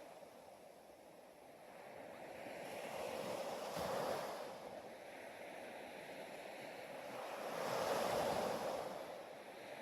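Ocean waves washing ashore in a slow surge and retreat, swelling twice, about four seconds apart.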